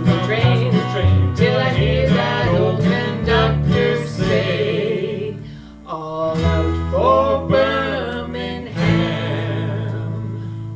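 Country band playing an instrumental passage with guitar: quick picked notes for about five seconds, then after a short dip, longer held notes over a steady bass.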